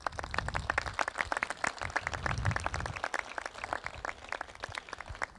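Audience applauding with many hands clapping; the clapping starts all at once and thins out near the end.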